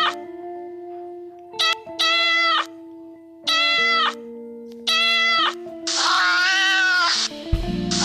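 Domestic cat meowing, about five separate meows spaced a second or so apart, the last one longer, over background music with steady held notes; a heavy bass beat comes in near the end.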